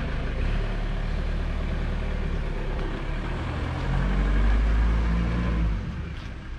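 Claas Arion 610's 6.8-litre six-cylinder diesel engine running steadily. It grows louder for about two seconds from about four seconds in, then falls away near the end.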